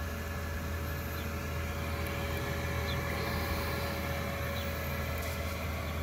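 Diesel air heater running on its highest setting: a steady, very quiet hum of its blower drawing in air and pushing hot air out of the floor vent, with a faint steady whine over it.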